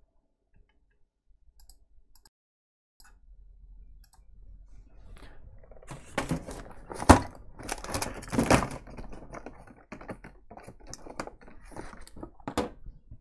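Small clicks, knocks and rattles of tools and phone parts as an iPhone 6s logic board is taken out of its housing on the workbench: a few faint ticks at first, then a busier run of knocks from about six seconds in, the sharpest about seven seconds in.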